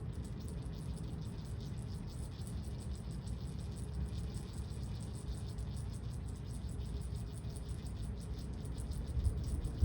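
Insects chirping in a fast, even pulsing rhythm over a steady low rumble.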